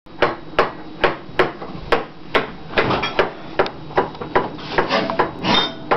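A steady run of sharp knocks, about two or three a second, with a little clatter between them near the end.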